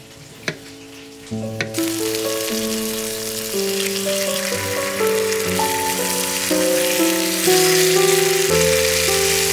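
Two knife strokes through a cucumber onto a wooden cutting board, then, about two seconds in, meat slices frying in hot oil in a pan: a steady sizzle that grows louder toward the end.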